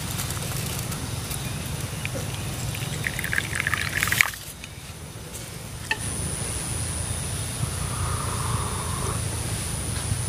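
Coffee poured from a stainless steel thermos into a small ceramic cup, the pour rising in pitch as the cup fills and stopping abruptly about four seconds in. From about six seconds a steady high-pitched whine runs on.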